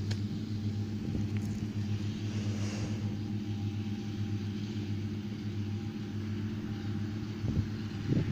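Tractor engine running steadily at a constant speed, a low even hum.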